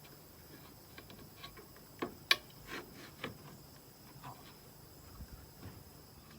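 A few scattered light clicks and knocks, the loudest a pair about two seconds in.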